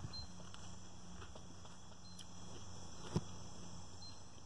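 Faint night chorus of crickets and other insects, a steady high trilling with short chirps now and then, over a low steady hum. A single sharp click comes about three seconds in.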